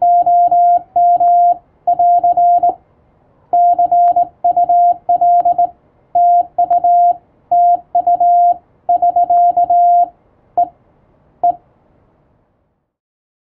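Morse code (CW) sent as a steady single tone of about 700 Hz, keyed into quick dots and dashes. The keying stops near the end with two spaced single dots.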